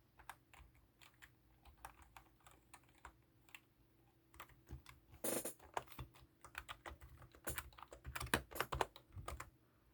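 Typing on an ABKO MK108 membrane keyboard: quiet keystroke clicks, sparse at first and coming quicker from about halfway, with one louder click a little past the middle.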